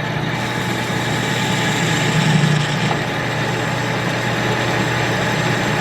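Victor 1640 manual lathe running and turning round stock, with the steady hum of its motor and the rotary phase converter that powers it.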